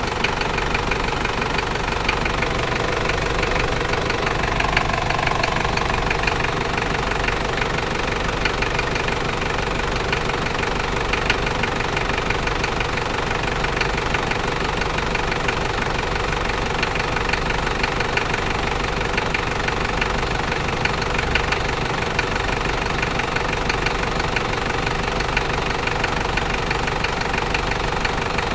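Toyota 1KZ-T four-cylinder turbodiesel engine running at a steady speed with a rapid, even clatter. It is a new engine that the owner says is making an unwanted noise.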